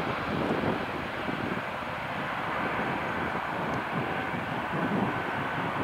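Airbus A320neo's Pratt & Whitney PW1100G geared turbofan engines running as the airliner rolls along the runway: a steady rushing noise with an uneven low rumble and a faint high whine.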